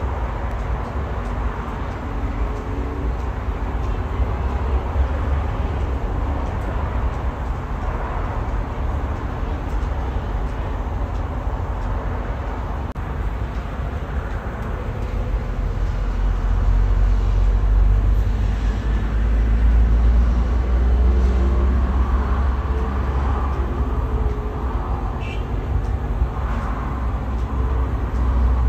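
Wind buffeting the microphone in a low, gusty rumble that grows louder about two-thirds of the way in, over a steady hum of distant city traffic.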